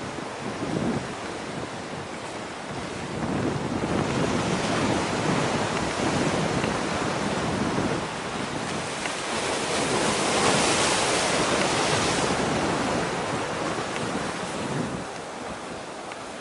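Wind noise on the microphone over the wash of sea waves, swelling louder through the middle and easing near the end.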